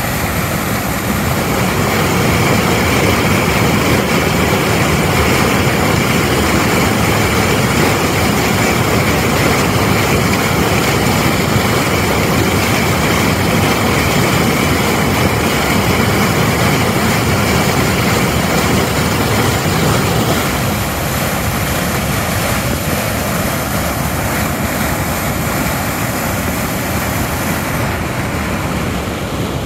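Loud, steady rush of muddy floodwater pouring over a concrete weir and churning into white foam below it, a little quieter from about two-thirds of the way through.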